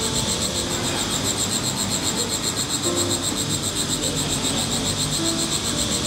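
Chirping insects in a steady chorus of fast, evenly pulsing high chirps, with scattered short lower calls.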